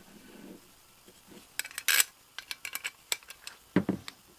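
Light clicks and clinks of hard parts being handled as a metal gas pump handle and a lamp socket on a brass nipple are fitted together by hand, with a duller knock near the end.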